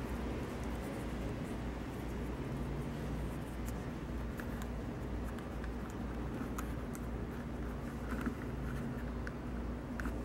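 Faint scattered ticks and scratches of needles and waxed thread being handled and worked through a leather holster during hand stitching, over a steady low hum.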